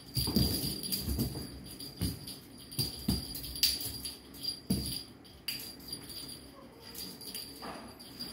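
A feather wand cat toy being waved and shaken for two kittens, with light jingling and clicking and several soft thumps on the sofa cushions, most of them in the first five seconds.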